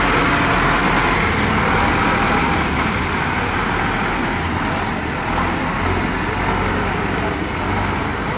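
Tractor engines running steadily, a low rumble under a broad noisy hiss.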